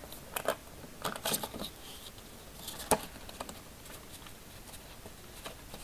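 Clear plastic binder pouches and pages rustling and tapping as they are handled and turned in a ring binder, with one sharper click about three seconds in.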